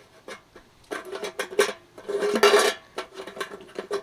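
Metal parts clinking and rattling as they are handled. There is a run of clicks and clatters starting about a second in, loudest just past the middle, with a short metallic ring near the end.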